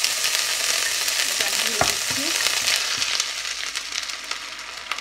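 Chopped garlic and ginger sizzling in melted butter in a frying pan, with one knock a little under two seconds in. The sizzle dies down over the last two seconds as the sweet chilli sauce is poured in and covers the hot butter.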